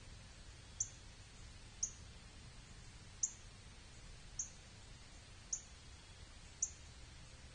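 A small bird giving a short, high chip note about once a second, six times, over faint low background noise.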